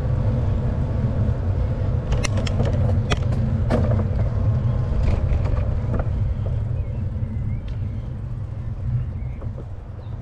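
Wind and road rumble on the microphone of an e-bike being ridden, with a few sharp clicks and rattles about two to four seconds in.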